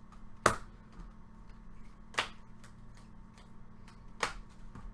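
Trading cards being handled and set down on a table: three sharp snaps about two seconds apart, with faint ticks between.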